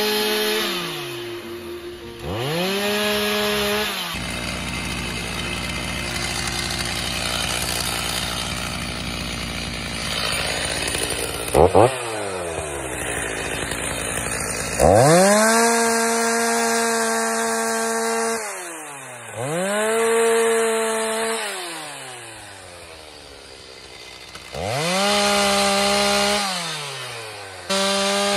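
Two-stroke chainsaw cutting a log. It revs several times, each time climbing quickly to full speed, holding there and then dropping back toward idle, with a stretch of steady running under load in between.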